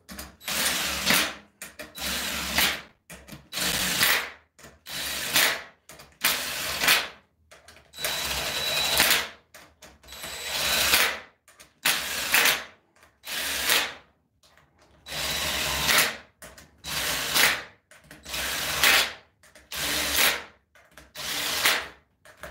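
Cordless drill/driver running the cover bolts of a bolt-together torque converter down into the aluminum cover threads, one bolt after another. It comes as a string of short runs about a second each, with brief pauses between them.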